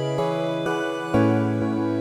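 Background music: a slow instrumental with held chords that change about once a second.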